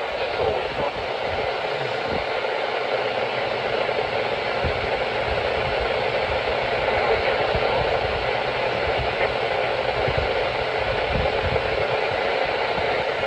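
Steady radio static: a NOAA Weather Radio receiver hissing with no voice on the channel.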